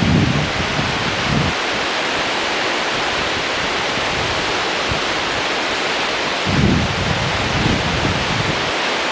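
Rio Grande whitewater rapids rushing steadily, with low wind buffets on the microphone at the start and again about two-thirds of the way through.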